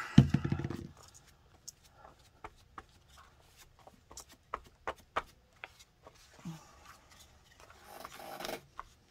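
A short, loud rasping scrape as excess Mod Podge is scraped off a brush against the rim of its plastic jar, then scattered light taps and a soft brushing rub about eight seconds in as the glue is spread over a paper journal page.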